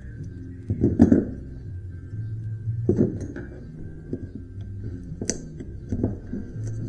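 Sharp metal knocks and clinks from copper windings being stripped out of an electric motor stator, about six strikes, the loudest about a second in, over music with guitar playing in the background.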